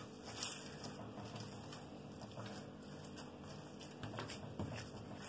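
Hands kneading soft yeast dough on a floured countertop: faint soft patting and rubbing, with a couple of slightly louder thumps about four seconds in.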